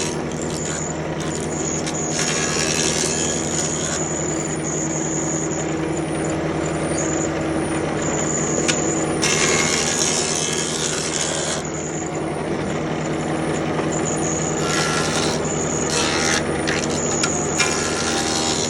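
A woodworking power tool's motor running steadily, with several spells of louder hissing noise as it cuts into the wood.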